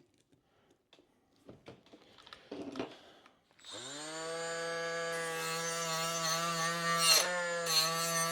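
A few faint handling clicks, then about three and a half seconds in a battery angle grinder spins up with a quickly rising whine and runs steadily at speed. Around seven seconds its pitch dips briefly and recovers as the abrasive disc is pressed onto the paint and rust on the metal.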